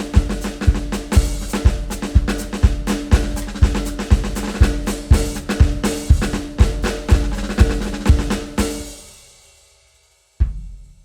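Film-score music with a drum kit playing a steady driving beat of kick and snare over held low notes. It fades out about nine seconds in, and after a short silence a single hit starts a new passage with low bass notes.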